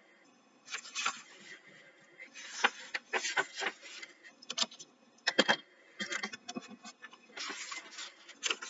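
Paper-book pages rustling and scraping in a string of short bursts as a picture book's pages are turned and handled.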